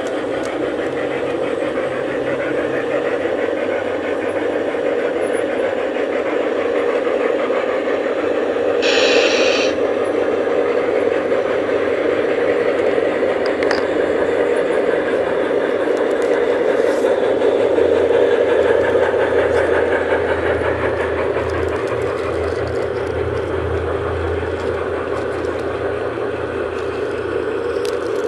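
G-scale garden railway trains running on outdoor track, a steady mechanical running noise of model wheels and motors. A brief hiss comes about nine seconds in, and a low hum grows in the second half as a locomotive comes close.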